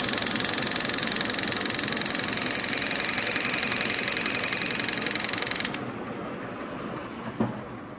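Milling machine with a facing boring head taking a facing cut across a bronze bush: a loud, even cutting noise with a fine, rapid chatter. It stops abruptly about six seconds in, leaving the quieter running of the machine.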